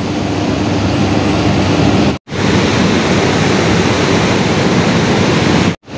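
Steady machine hum and noise of hydroelectric generating units running inside a power house. About two seconds in there is a sudden cut to loud, even rushing of white water churning through a channel.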